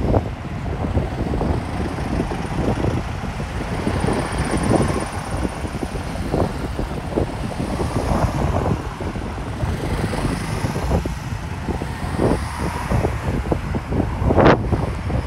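Road traffic driving past: cars and motor scooters, with wind buffeting the microphone. A short sharp knock near the end.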